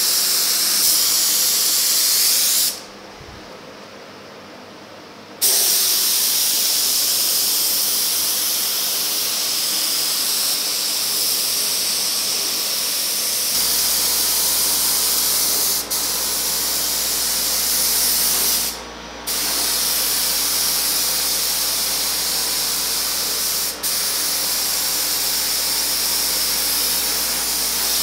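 Gravity-feed paint spray gun hissing as it sprays polyester primer, run at high air pressure for its larger tip. The hiss stops for a couple of seconds about three seconds in, and again in shorter breaks later, each time the trigger is let go.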